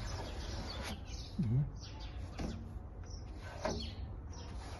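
Sandpaper rubbed by hand over dried body filler on a car door, rasping strokes, with a few short bird chirps behind.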